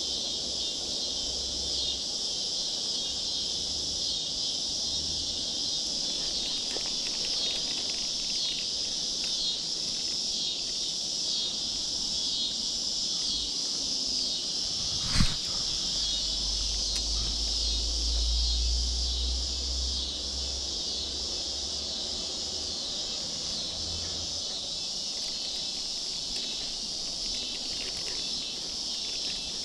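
Steady chorus of insects, a continuous high shrill with a pulsing rhythm. A single sharp click about halfway through, followed by a few seconds of low rumble.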